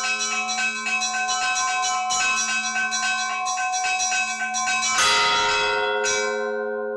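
Church bells ringing a rapid peal: smaller bells struck several times a second over the steady hum of larger bells. A heavy strike comes about five seconds in and another a second later, then the striking stops and the bells ring out.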